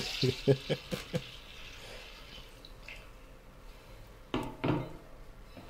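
Milk pouring from a jug into a glass baking dish, trailing off within the first second, under a few short chuckles. Then a brief two-syllable murmur of voice about four seconds in.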